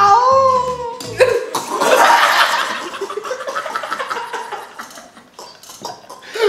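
Men laughing and chuckling, loudest about two seconds in and fading toward the end. A short music beat cuts off early.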